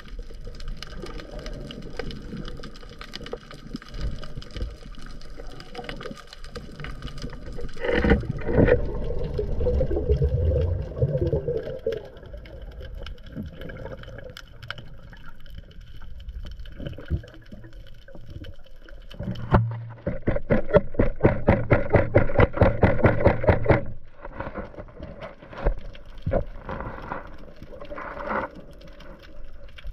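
Underwater ambience heard through a submerged camera: a steady hiss of water full of fine crackling clicks. About two-thirds of the way through comes a louder stretch of a few seconds of rapid, dense clicking, and there is a louder surge of water noise about a third of the way in.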